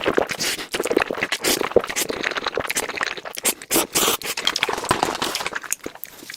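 Close-miked eating of noodles, sped up four times: a dense, irregular run of quick chewing and mouth clicks.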